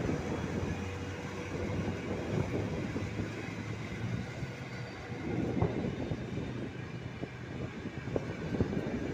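Intercity passenger coaches rolling past: a steady rumble of steel wheels on the rails, with sharper clacks now and then as wheels cross rail joints.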